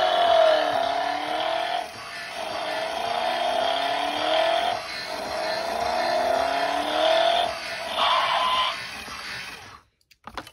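Toy semi truck's electronic engine sound effect playing through its small speaker: a revving tone that rises and drops back about four times, then cuts off near the end.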